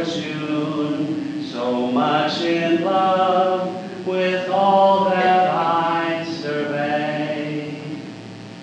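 Voices singing a slow hymn with long held notes, dying away near the end.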